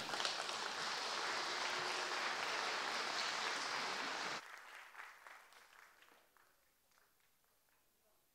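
Audience applauding in a hall for about four seconds, then cutting off suddenly; a few scattered claps trail away to near silence.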